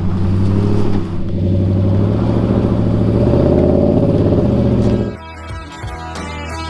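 A vehicle engine running steadily at close range, loud and even, for about five seconds, then cut off abruptly by acoustic guitar music.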